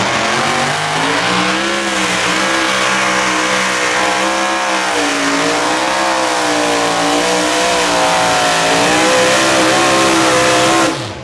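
Mini modified pulling tractor's engine running at full throttle under the load of the sled, its pitch wavering up and down as the tyres dig in. It cuts off abruptly near the end as the pull finishes.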